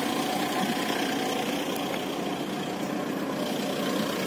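Engine idling steadily, an even hum with no change in speed.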